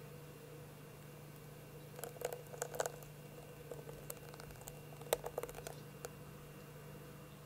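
Thick raspberry purée poured from a small glass jug onto a soft whipped-cream and yogurt mixture in a glass bowl: soft wet patters and drips in two short clusters, about two seconds in and again around five seconds in.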